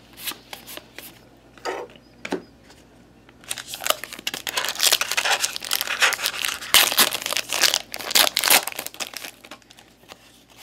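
A trading-card pack wrapper being torn open and crinkled in the hands: a dense stretch of crackling and tearing from about three and a half seconds in until near the end. It is preceded by a few soft separate clicks.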